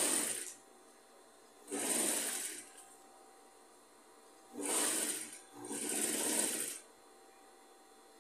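Singer industrial sewing machine stitching through the layered fabric of a rag rug in short runs. It starts and stops four times, each run lasting about half a second to a second, with pauses between.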